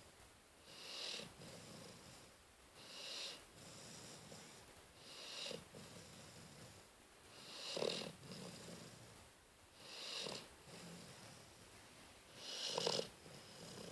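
Rottweiler snoring in its sleep: a slow, regular rhythm of about six snoring breaths, one every two seconds or so. The breaths near the middle and near the end are louder than the rest.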